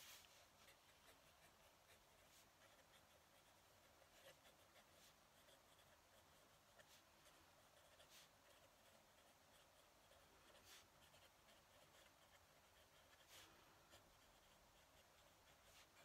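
Faint scratching of a fountain pen nib across a lined paper pad during steady handwriting, with a few brief ticks scattered through it.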